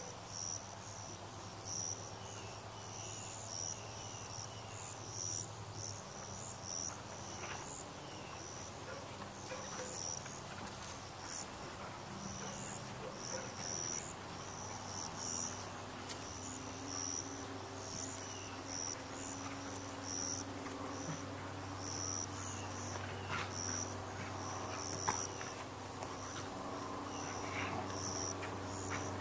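Evening crickets chirping in short, repeated high-pitched pulses, over a steady low hum.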